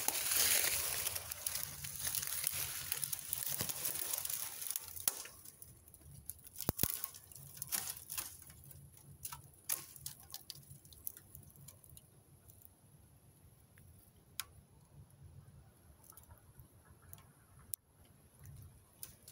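Dry vine stems rustling and scraping against the phone for the first few seconds, then scattered light clicks and snaps of the twigs.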